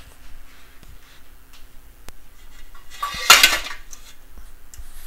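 Mustard seeds heating in cooking oil in a wok, giving a few faint scattered ticks as they begin to crackle, with one louder clatter lasting about half a second a little after three seconds in.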